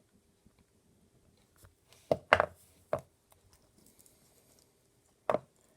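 Small wire cutters snipping through the thin leads inside a TowerPro 9g micro servo: a few sharp snaps, the loudest pair a little over two seconds in, another just under a second later and one more near the end, with faint handling clicks between.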